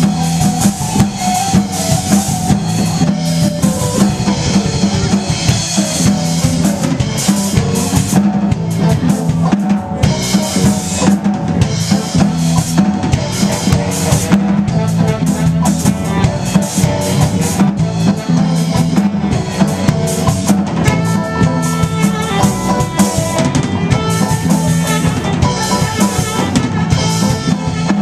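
Live band playing an instrumental passage: a drum kit keeps a busy beat with steady bass drum and snare hits under an electric guitar playing lead lines. Higher held notes come in over the beat from about three-quarters of the way through.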